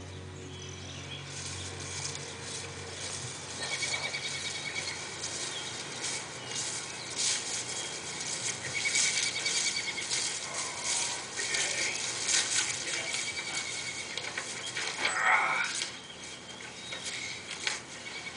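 Two cats play-fighting on a carpet: a run of scuffling, scratching and rustling as paws, claws and bodies rub against the carpet and a blanket, coming in uneven bursts.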